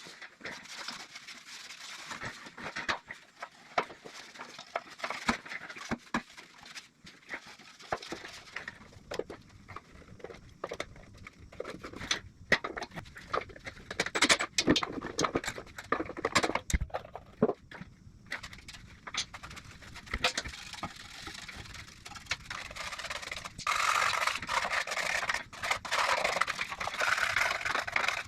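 Greasy air compressor being hand-washed with soapy water: irregular wet scrubbing and scraping with scattered knocks and clicks, turning to a denser, steadier rush of noise near the end.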